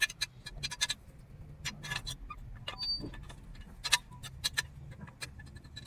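Irregular metallic clicks and taps from hand tools and small engine parts being handled, some in quick little clusters.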